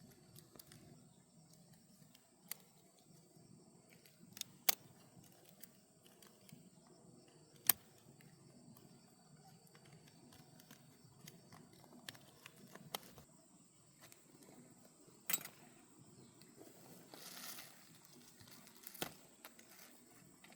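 Scattered sharp clinks of metal tools and engine parts being handled during hands-on tractor engine work, about eight separate knocks at uneven intervals, with a short hiss near the end.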